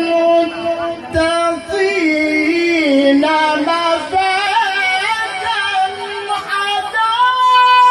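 A high solo voice singing into a microphone, holding long notes with wavering ornaments, then stepping up to a higher sustained note near the end.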